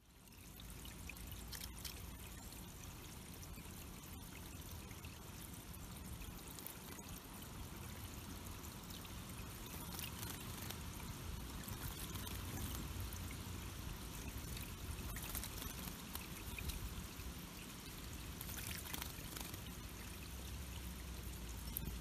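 Water trickling and pouring steadily over the rocks of a small backyard bird pond, a little louder in the second half.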